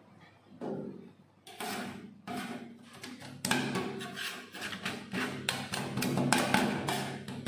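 Metal spatulas chopping and tapping on the steel freezing plate of a rolled ice cream pan, mashing strawberry cake into the cream base: a rapid run of sharp clicks that starts about a second and a half in and grows busier and louder.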